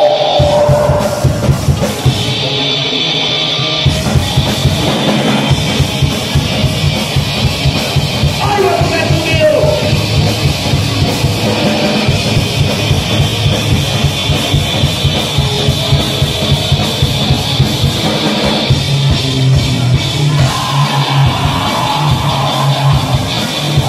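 Gore grind band playing live: heavy bass and guitar over fast, dense drumming on a drum kit.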